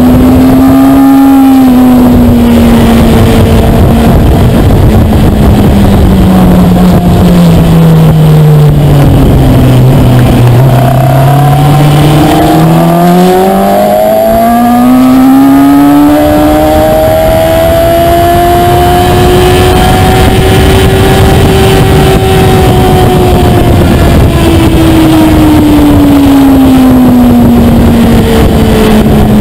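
2013 Kawasaki ZX-6R 636's inline-four engine heard onboard at track speed, over wind rush. The engine note drops as the bike slows through a corner about a third of the way in, then climbs as it accelerates out, easing down again near the end.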